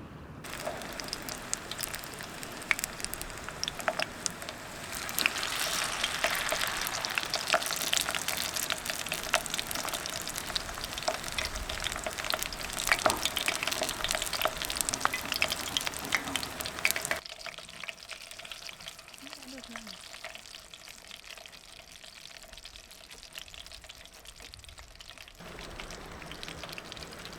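Food frying in a pan, sizzling and crackling with a dense spatter of pops. About two-thirds of the way in the sound cuts abruptly to a much quieter, softer sizzle.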